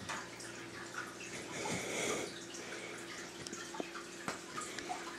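Faint trickling and dripping of a fish tank's running water, over a steady low hum.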